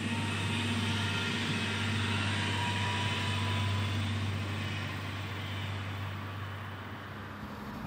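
Diesel railcar running steadily: a low, even engine drone under a rushing noise, growing a little quieter near the end.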